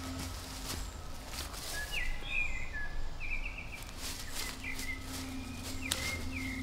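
Woodland ambience: a bird chirping in short repeated calls from about two seconds in, with a few sharp clicks or cracks, over a low steady hum.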